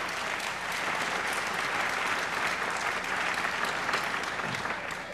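Audience applauding: steady, dense clapping that fades out near the end.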